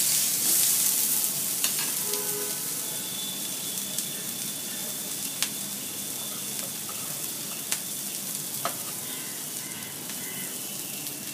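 Uttapam frying in oil on a flat pan, a steady sizzle that slowly grows quieter, with a few faint clicks.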